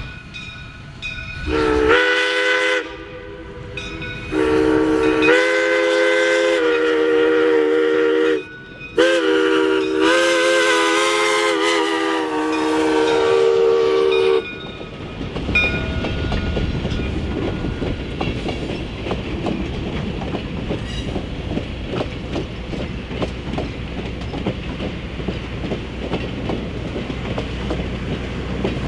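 Steam whistle of a 1920 Baldwin 0-6-0 steam locomotive blowing three blasts, one short then two long, each a chord of several notes. After the whistle stops, about halfway through, the steady rumble and clickety-clack of the train's wheels on the rails takes over as the coaches pass.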